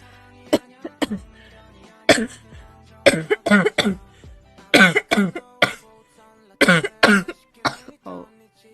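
A girl coughing over and over in short fits of two or three coughs, with faint background music under it.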